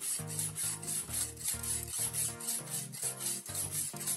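Abrasive sharpening stone rubbed along a steel kitchen knife's edge: a rasping scrape repeated in quick, even strokes, several a second.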